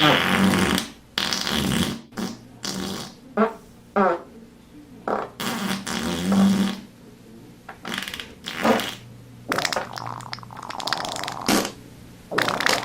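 A string of about a dozen fart sound effects, one after another: short pops, pitched raspy ones, and a longer sputtering one lasting about two seconds late on.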